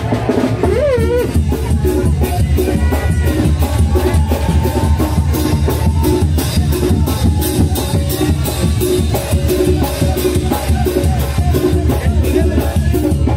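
Mexican brass band (banda de viento) playing a lively tune, with a strong bass line, held brass notes and a steady drum-and-cymbal beat. A few wavering shouts from the crowd ring out over it in the first second or so.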